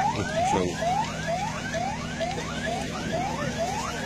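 Emergency vehicle siren sounding in quick rising sweeps, about three a second, with a low steady hum underneath.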